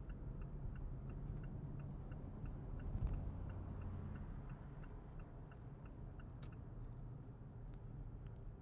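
Car turn signal ticking at an even pace, about two to three ticks a second, over the steady low rumble of the car's engine and road noise inside the cabin.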